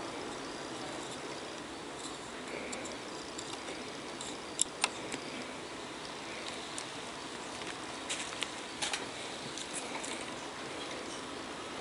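Steady low hiss of bench room noise, with a few light, sharp clicks of small tools and parts being handled on a circuit board during the soldering-in of a surface-mount op-amp chip. The clicks come in two small clusters, about halfway through and again a little later.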